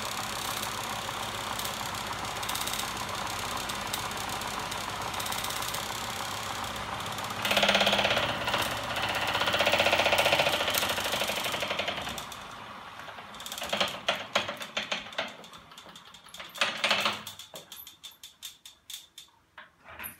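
A homemade magnet generator machine running on its DC electric motors with a steady mechanical whir, growing louder from about a third of the way in, then spinning down. As it slows, a bicycle freewheel ratchet clicks more and more slowly until the machine stops near the end.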